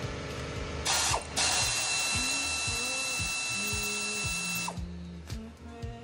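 Power ratchet running on the engine of a 3.4L Toyota timing belt job. A short burst about a second in, then it runs steadily for about three seconds with a whine, over background music.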